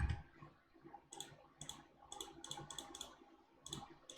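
Faint computer keyboard and mouse clicks, irregular and in small clusters of a few keystrokes.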